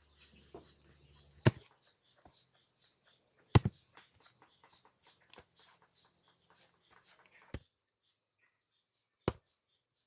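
A handful of sharp wooden knocks a couple of seconds apart, one of them doubled, from heavy timber being struck or set in place during construction work. Faint background ticking cuts off about three-quarters of the way through.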